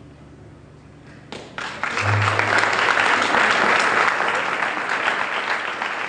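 Audience applauding after a talk. The clapping breaks out about a second in, swells quickly and holds as a steady round of applause.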